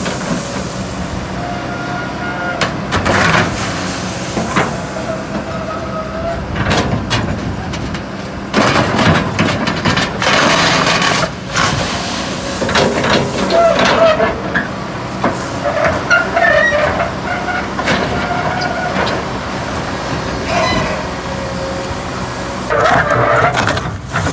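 Excavator working: its diesel engine runs steadily under wavering squeals and whines, with scattered clanks and knocks.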